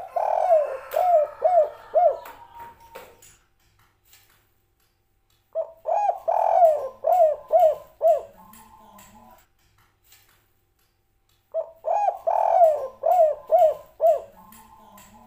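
Spotted dove cooing its 'kuk 3' song: three phrases of several quick, rising-and-falling coos, about six seconds apart.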